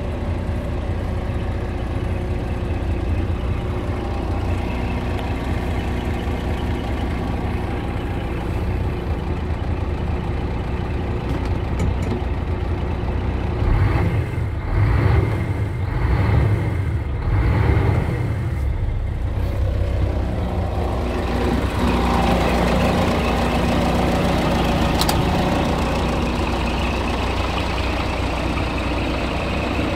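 Scania R340 truck's 9-litre five-cylinder diesel idling, heard from inside the cab. About halfway through, the revs rise and fall several times in quick throttle blips, and then it settles back to a steady idle.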